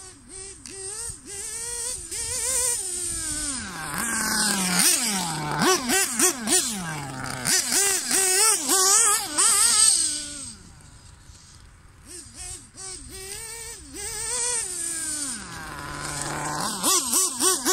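Nitro two-stroke glow engine of a Hobao Hyper 7 TQ2 1/8-scale buggy revving hard, its pitch rising and falling over and over with the throttle as the car races about. Falling-pitch passes come about four to seven seconds in and again near the end, with a quieter lull in between.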